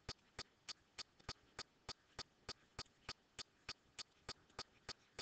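Faint, evenly spaced ticking, about three ticks a second.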